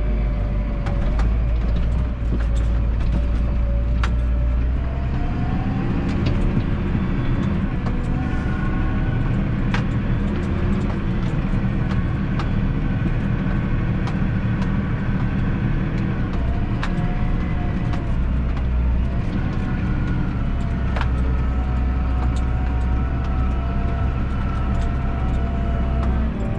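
Massey Ferguson 7718S tractor's six-cylinder diesel engine and drivetrain running steadily under load, heard from inside the cab, with a whine whose pitch shifts a few times and occasional light ticks.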